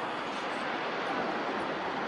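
Steady road traffic on the bridge: a constant, even hiss of vehicles passing, with no single event standing out.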